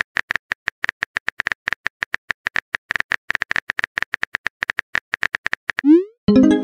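Phone keyboard typing clicks, a quick irregular run of taps as a text message is typed. Near the end comes a rising swoosh and then a short, louder pop-like chime as the message is sent.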